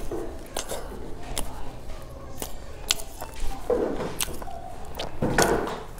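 Close-up chewing and biting of a milk-soaked flaky chestnut pastry: wet mouth sounds, with sharp lip-smack clicks several times.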